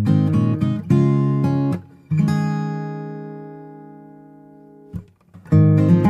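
Background music of strummed acoustic guitar chords. About two seconds in, one chord is left ringing and slowly fading for nearly three seconds, then the strumming picks up again.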